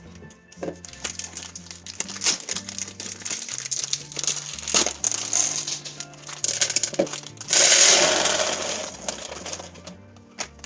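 Dry food and storage containers being handled: small hard clicks and clatters, then a rush of dry goods poured into a container for about a second and a half, over background music.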